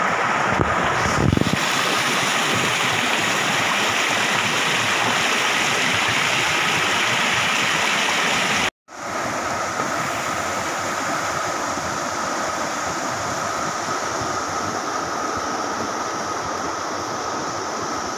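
Shallow jungle stream rushing steadily over rocks as a continuous hiss of water. It cuts out for a moment about halfway through, then carries on slightly quieter.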